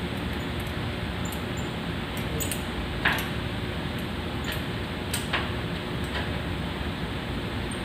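Metal parts clinking and knocking a few times, the loudest about three seconds in, over a steady background noise.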